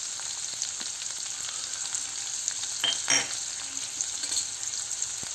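Freshly added chopped onions sizzling in hot oil in a nonstick pan, a steady frying hiss as they start to cook, with a couple of short ticks about three seconds in.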